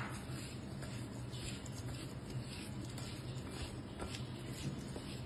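A hand squishing and rubbing peeled lotkan (Burmese grape) fruit segments with seasoning in a bowl: faint, irregular soft scuffs over a steady low hum.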